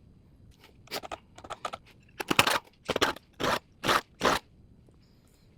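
Hand file scraping across the chain teeth of a small cordless chainsaw, sharpening a dull chain. There are a few light strokes about a second in, then five firm strokes about half a second apart.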